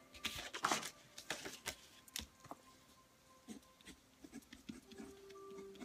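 Handling noise from a phone's microphone as the phone is moved: a flurry of rustles and knocks in the first two seconds, then a few faint scattered taps.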